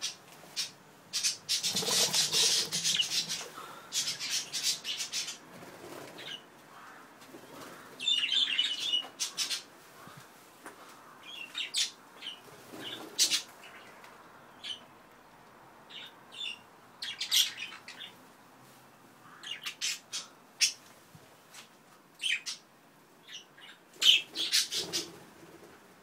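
Pet budgerigars and cockatiels chirping and calling in short, scattered bursts, with busier flurries of chatter now and then.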